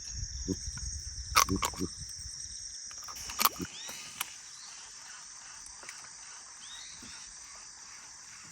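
Steady high-pitched chorus of crickets or similar insects from the surrounding tropical forest. A few sharp knocks come in the first four seconds, and short falling chirps from some small animal sound now and then.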